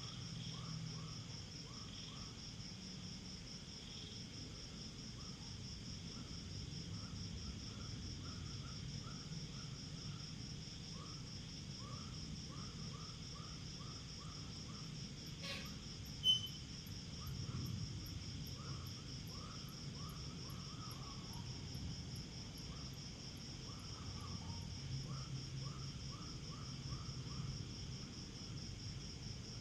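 Night insects chirping in a steady, finely pulsing high drone, with a lower chirp repeating a few times a second. A single sharp click comes about halfway through.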